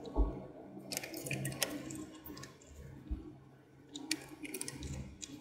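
Fuel mix for a two-stroke chainsaw being made up in a plastic bottle: scattered clicks and knocks of the bottle and cap being handled, with some liquid pouring and sloshing.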